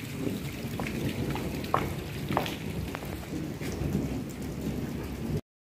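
Rain falling steadily on a wet concrete yard, with a few close drips splashing now and then. The sound cuts off suddenly near the end.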